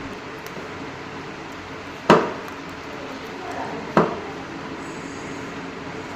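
Two sharp knocks about two seconds apart, each with a short ringing tail, over a steady background noise.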